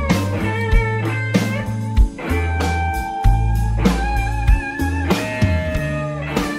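Background music: blues-rock with electric guitar over a bass line and a steady beat.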